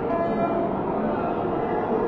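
Steady din of a street protest crowd facing riot police, with a few held tones in the noise.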